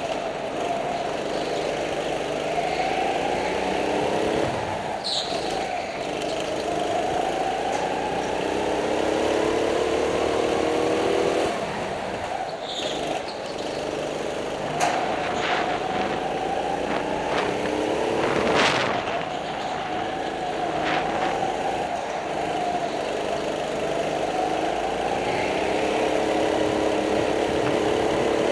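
Go-kart engine heard from on board, its pitch repeatedly rising as it accelerates and falling as it eases off for corners. A few brief sharp sounds stand out over it.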